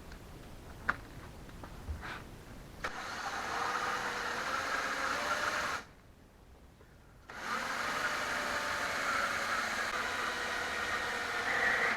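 Cordless drill boring into the hardwood of a rake handle, running steadily for about three seconds, stopping briefly, then running again. A few light knocks come before the first run.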